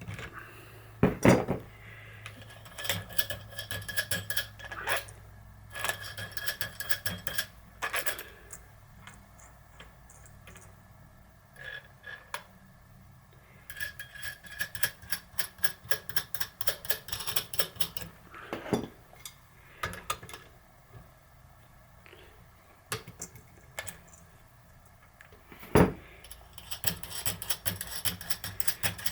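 Small metal parts and tools clinking and clattering on a workbench in quick runs of sharp ringing clicks, with two louder knocks: one about a second in and one near the end.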